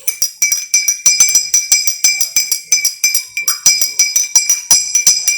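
A spoon stirring briskly in a glass of lemonade and clinking against the glass's sides about five times a second, each strike ringing with the same bright glassy tones.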